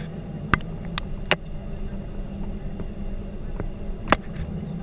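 Steady cabin noise inside a Ryanair Boeing 737-800 as it rolls along the ground after landing, with a low engine hum. Three sharp clicks stand out, the loudest near the end.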